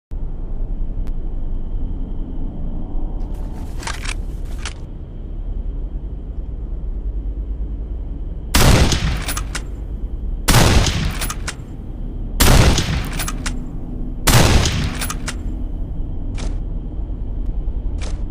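Winchester Model 1897 pump-action shotgun: a few metallic clicks of the action, then four shots about two seconds apart, each followed by sharp clicks, and two lighter clicks near the end, over a steady background hiss.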